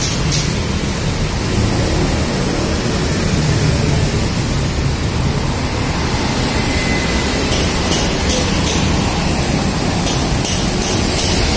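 Steady rush of city street traffic as cars, motorbikes and a small truck pass close by.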